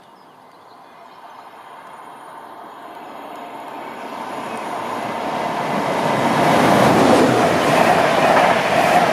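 InterCity 225 express hauled by a Class 91 electric locomotive approaching at speed. The rush of its wheels on the rails grows steadily louder for about seven seconds, then stays loud as the train draws level.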